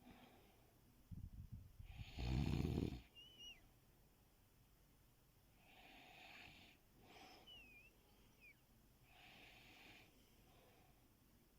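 A sleeping person snoring: one loud, low snore about two seconds in, then softer, breathy snores every few seconds. Faint thin whistles that slide in pitch come on some of the breaths.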